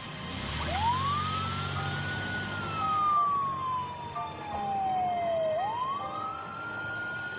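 Ambulance siren wailing in slow cycles. It rises and holds high, falls slowly over about three seconds, then rises again near the end.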